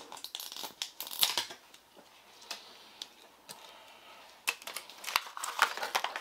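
Plastic toy packaging being handled: short rustles and clicks in scattered bursts, with a quieter stretch in the middle.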